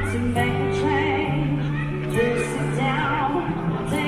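Background music with a sung vocal line over steady held bass notes.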